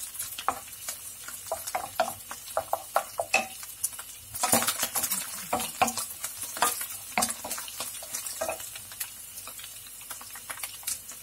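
Wooden spoon stirring and scraping beef mince around a white-coated frying pan: a run of irregular scrapes and taps, busiest about four and a half seconds in, over a faint sizzle of hot oil.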